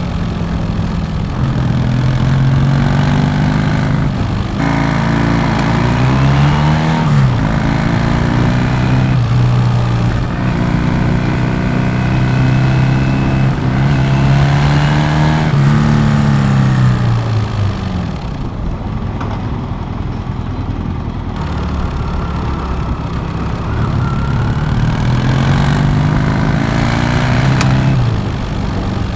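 Yamaha motorcycle exhaust under way, the engine pitch climbing and then dropping back again and again as the bike accelerates and shifts. For a few seconds about two-thirds in the engine runs lower and quieter, before it climbs again.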